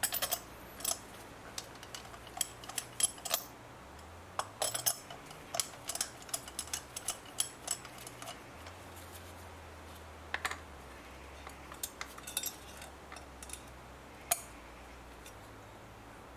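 Irregular metallic clicks and clinks of a socket wrench and extension loosening spark plugs, which can be tight to undo, some in short quick runs.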